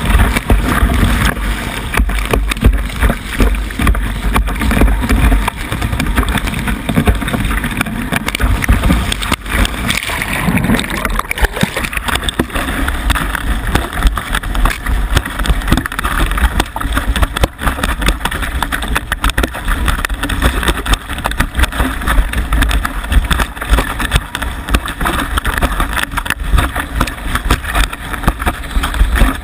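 Wind buffeting the microphone of a board-mounted camera while a kiteboard planes over choppy water, with the rushing hiss and slap of water and spray.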